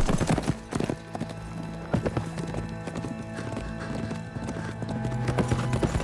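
Horses galloping, their hoofbeats coming fast and irregular on soft forest earth. Background music holds steady low notes underneath, swelling slightly near the end.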